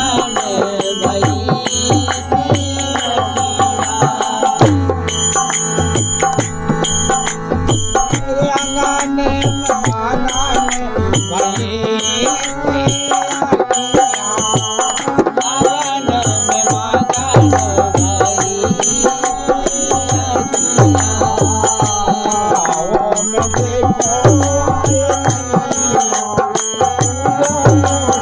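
Bundeli Kartik geet folk music: a harmonium carries the melody over a steady dholak drum rhythm, with small brass hand cymbals (manjira) clashing on the beat.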